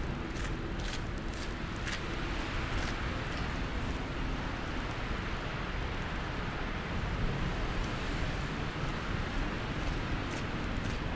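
Steady street ambience of a snowbound city at night: a low, constant traffic rumble under an even hiss. A few soft footsteps crunch in snow in the first three seconds and once more near the end.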